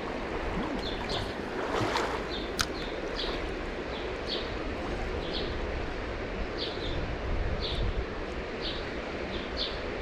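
Steady rush of a small river's flowing water, with a bird chirping over it in short high notes about once a second.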